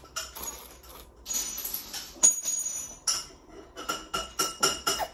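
Sucking on a plastic straw pushed into a peeled orange segment: a hiss of air, then a quick run of short wet clicks and slurps near the end, as little or no juice comes through the straw.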